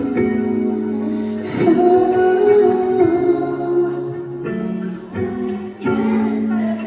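Live band playing a slow R&B ballad with guitar, and a voice singing a long, wavering line over it.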